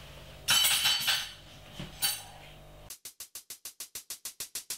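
Two bright clinks with a short ring, about half a second and two seconds in. Then a run of quick ticks, about seven a second, growing steadily louder as the lead-in to the outro music.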